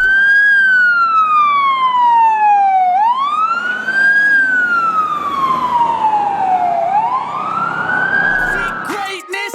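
A siren wailing: its pitch rises quickly, then falls slowly over about two and a half seconds, in a cycle that repeats two and a half times.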